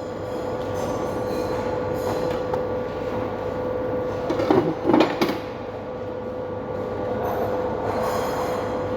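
Steady machine drone with a held whine, and a few short knocks about halfway through.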